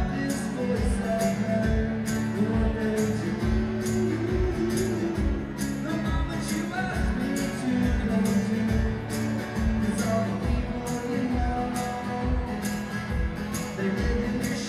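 Live acoustic guitar and banjo playing a song passage with no lyrics, over a kick drum keeping a steady beat of about two thumps a second.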